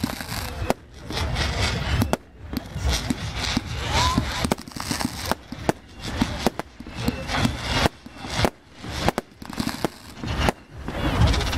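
Fireworks display: a rapid, irregular series of sharp bangs from exploding aerial shells.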